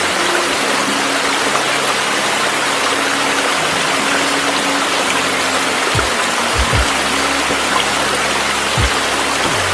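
A steady rushing noise like running water, laid over slow background music with a few deep, falling bass-drum hits, mostly in the second half.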